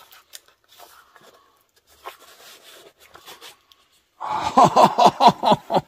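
Faint clicks and rustles of small old objects being handled in a box. About four seconds in, a loud run of quick voice-like syllables breaks in: an excited exclamation.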